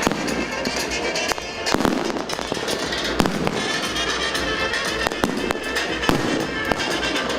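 Fireworks going off in a fast, irregular run of bangs and crackles, over music playing throughout.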